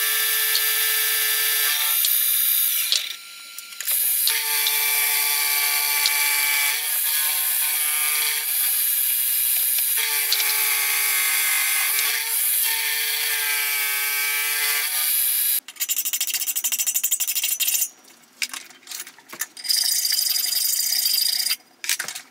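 Milling machine face-milling a steel block to square it: the cutter cuts with a steady high-pitched whine and a brief lull about three seconds in. After about fifteen seconds the whine stops and a run of short scraping strokes follows, on and off.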